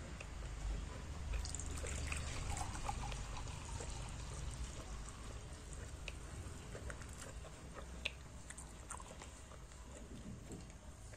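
Dark herbal tea being poured into a glass cup, a trickling stream that is strongest in the first few seconds and then eases off. One sharp tick about eight seconds in.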